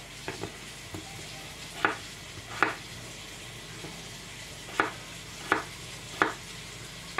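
Kitchen knife chopping peeled potato into small cubes: about six sharp knocks as the blade goes through and strikes the plastic cutting board, irregularly spaced with a pause between the second and third, over a steady hiss.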